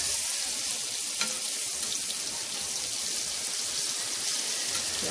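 Marinated white mullet (boi fish) pieces frying in hot oil on a tawa, a steady high sizzle. A single light click comes about a second in.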